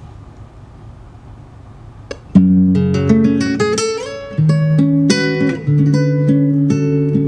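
Recorded song intro on acoustic guitar: a low steady hum, a click, then plucked guitar notes starting about two seconds in.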